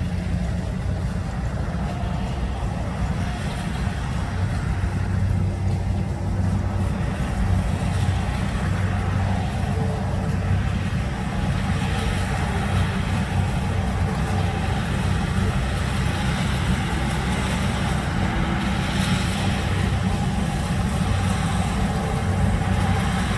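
Kubota DC70 rice combine harvester running steadily while cutting rice, its diesel engine and threshing machinery giving an even, low engine note.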